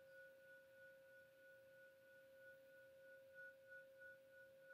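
Faint lingering ring of a struck brass kin, the Buddhist bowl bell: a steady two-note hum, the higher note wavering as it slowly dies away.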